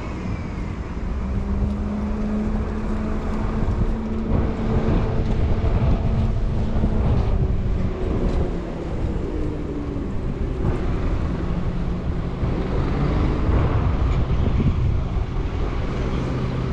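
Diesel engines of city buses running close by: a steady low engine drone whose pitch drifts up and down now and then.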